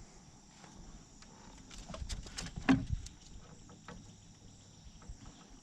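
Faint steady chirring of crickets and other insects, with a few short knocks and clicks, the loudest about two and a half seconds in.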